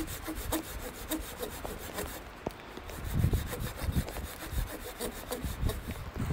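Carbon-steel bushcraft knife (Casström No. 10) scraping and shaving along a wooden log in rapid, evenly repeated strokes, with a brief pause about two seconds in.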